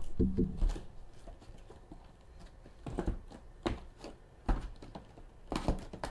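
A handful of separate knocks and taps of objects being handled on a tabletop, spaced a second or so apart.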